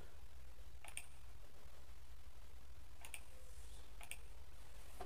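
Three faint computer mouse clicks, about a second apart near the middle and end, over a low steady hum.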